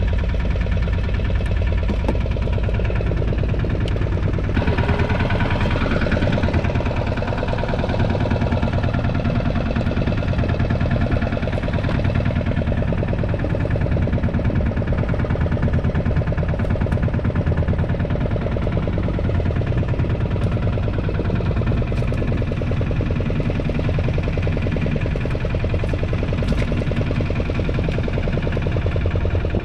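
Fishing boat's engine running steadily with a fast, even chugging.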